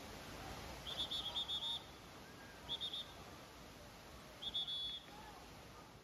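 Steady rush of a tall waterfall crashing onto rocks. Three short, high, rapid chirping trills cut through it: one lasting nearly a second about a second in, a brief one near the middle, and another toward the end.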